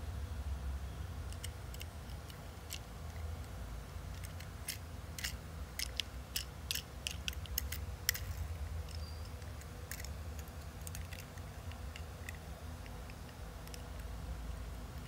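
Small die-cast toy garbage truck handled in the fingers: scattered sharp clicks and taps of its metal body, plastic base and wheels, thickest in the middle, over a steady low hum.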